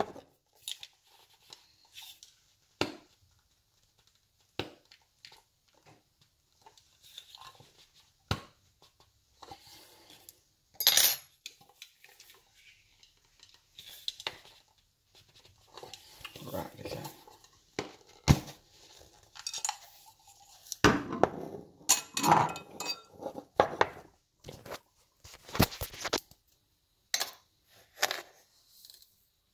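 A metal spoon clinking and scraping against a ceramic mug, with knocks and rustling, while sugar is spooned into a mug of tea. The sounds come in irregular bunches of sharp clicks and come thickest in the second half.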